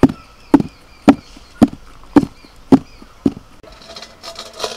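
Aluminium pot of cake batter tapped down on the floor, seven sharp knocks about twice a second that stop about three seconds in. The tapping settles the batter and drives the air bubbles out before baking.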